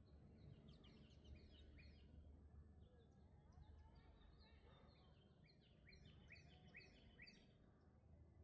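Near silence with faint bird chirping: a few short calls early on, then a quick run of repeated chirps in the second half, over a faint low rumble of outdoor ambience.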